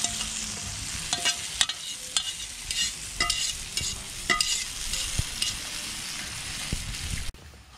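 Brown stew chicken sizzling in a metal frying pan over a wood fire, with sharp ringing clinks and scrapes of a metal fork against the pot and pan as ackee is scraped in and stirred. The sizzle cuts off suddenly near the end.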